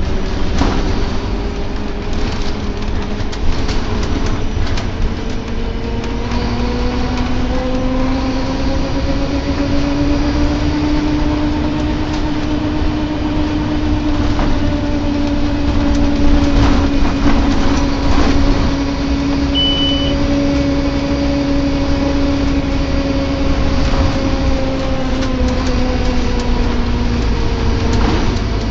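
Scania K230UB single-decker bus on the move, heard from inside, with a groaning tone over the low rumble and rattles. The groan rises in pitch about six seconds in, holds, then sinks again near the end.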